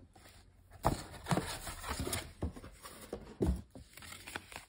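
Hands opening a cardboard presentation box and lifting out its insert: irregular soft taps, scrapes and rustles of cardboard, the loudest knock about three and a half seconds in.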